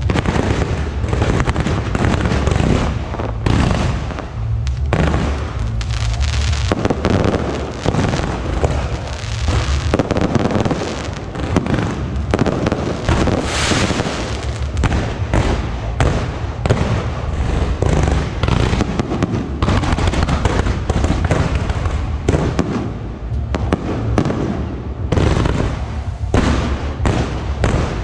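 Aerial fireworks display: a dense, continuous barrage of launches and bursting shells, with sharp cracks and bangs packed closely together, loud and without a pause.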